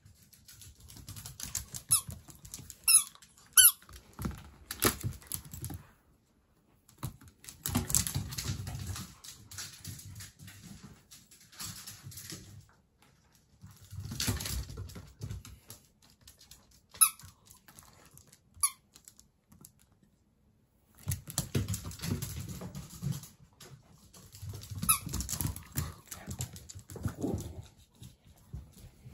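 A Jack Russell Terrier puppy's feet pattering and clicking on a wooden floor in several runs as it dashes back and forth during fetch, with a few short, high squeaks.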